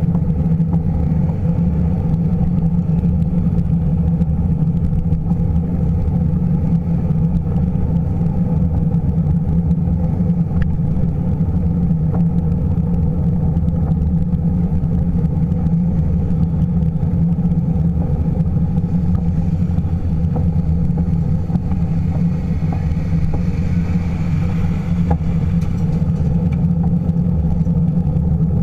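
Steady low rumble of wind and rolling noise on the microphone of a camera riding on a moving bicycle, muffled, with almost nothing in the high end.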